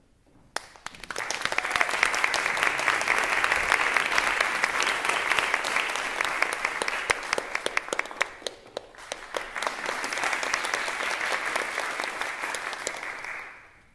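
Audience applauding as performers come on stage: a long spell of clapping that dips briefly about two-thirds of the way through, then picks up again and dies away just before the end.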